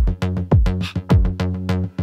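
Electronic background music with a steady drum-machine beat: deep kicks dropping in pitch nearly twice a second over a held bass line, with light ticking hi-hats.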